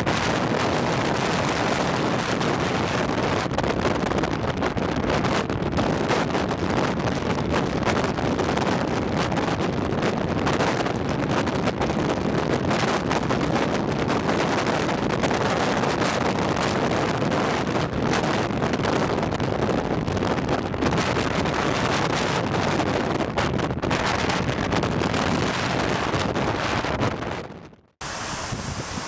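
Strong wind buffeting the microphone, a steady dense rush, with ocean surf on the beach mixed in. Near the end the sound drops out for a moment and comes back thinner.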